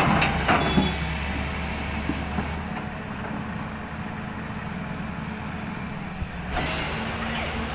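Excavator's diesel engine running steadily, with a few clanks in the first second. The sound turns duller for a few seconds in the middle, then returns.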